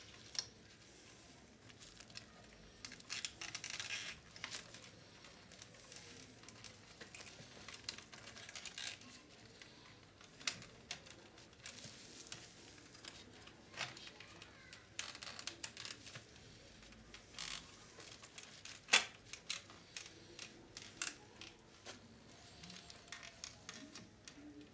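Faint, irregular small clicks, taps and rustles of hands handling parts and wiring inside the opened plastic case of a Philips D6350 portable cassette recorder, with one sharper click about three-quarters of the way through.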